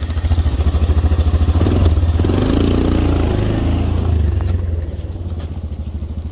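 Truck engine running close by with a steady, pulsing rumble. Its note climbs and eases off again about two seconds in, as the vehicle works or moves.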